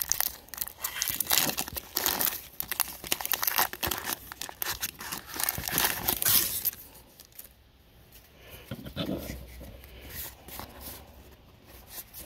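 Foil wrapper of a Magic: The Gathering set booster pack being torn open and crinkled, crackling densely for about seven seconds. After that come much fainter sounds of the cards being handled and fanned out.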